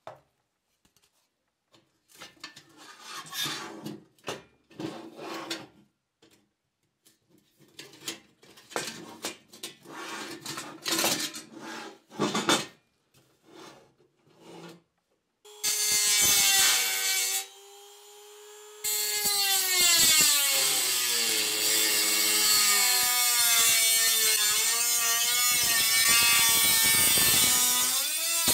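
Brittle rusted steel helmet pieces scraped and knocked about on a wooden bench in short, irregular bursts. About halfway through, a handheld rotary tool with a cut-off disc starts up and grinds into the rusted steel shell, throwing sparks. Its whine wavers in pitch as the load changes and eases off briefly once.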